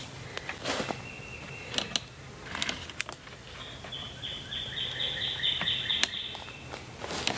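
A songbird singing in the woods, a fast run of repeated high notes lasting a couple of seconds in the middle, over a faint steady hum. A few scattered knocks and rustles of logs being handled on a stacked-log wall.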